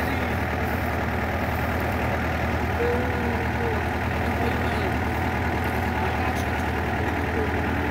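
Yanmar rice combine harvester's diesel engine and threshing machinery running steadily, a continuous low drone.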